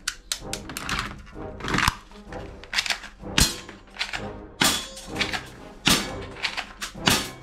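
Plastic toy guns clattering and knocking against each other as they are handled in a cardboard box: irregular sharp knocks, several loud ones among lighter clicks. Background music plays underneath.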